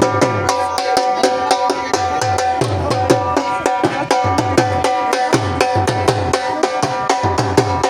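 Dhol drumming in a fast, steady rhythm: about six sharp strokes a second over repeated deep bass strokes. A steady, sustained pitched tone from a melodic instrument is held over the drumming.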